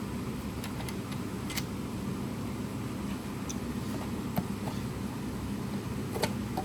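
Steady low background hum with a few faint clicks, about three, from small parts being handled while a computer speaker is taken apart.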